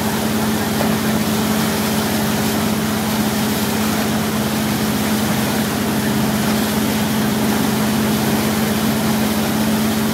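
Motorboat engine running steadily under way, a constant hum over the rushing noise of its churning wake.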